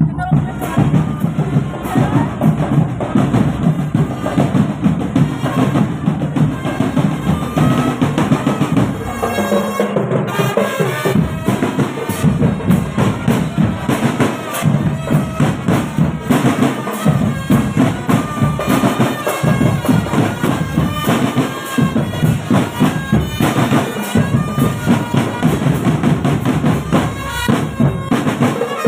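Marching drum band playing: snare and bass drums keep up a steady beat under a reedy wind-instrument melody. The drums drop out briefly about a third of the way through.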